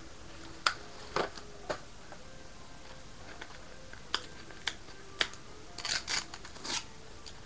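Hands opening a cardboard trading-card box and pulling out a foil-wrapped pack: a scattered series of short clicks, taps and crinkles of cardboard and wrapper.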